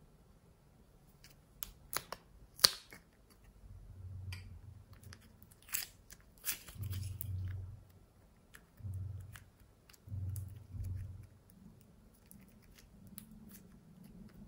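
Sharp plastic clicks from a bow-shaped plastic case being handled, then soft red clay or slime squeezed and kneaded by hand in several soft, squishy presses.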